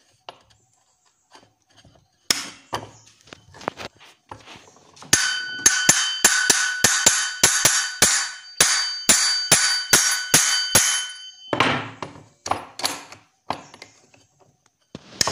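Hammer blows on a brush cutter's steel clutch bell held in locking pliers, knocking its bearing out: a few scattered knocks, then from about five seconds in a fast run of sharp metal strikes, about three a second for some six seconds, over a steady metallic ring, then a few more knocks. The bell is dented, so it is being hammered apart rather than eased off.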